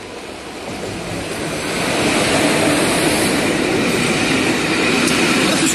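Twin WAP4 electric locomotives running light at speed past close by: the noise of their steel wheels on the rails grows louder over the first two seconds, then stays loud as the locomotives run alongside.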